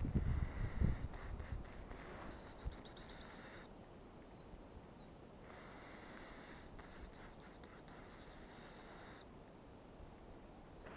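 Hazel grouse whistle decoy blown twice: each call is a long, thin, very high whistle that breaks into a falling, stuttering trill, imitating the hazel grouse's song to lure the bird in. A few faint short falling whistles sound between the calls.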